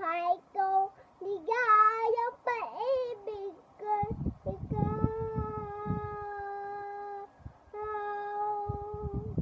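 A four-year-old girl singing alone, with no accompaniment heard: short wavering phrases at first, then two long held notes from about four seconds in. A low rumbling, bumping noise sits under the held notes.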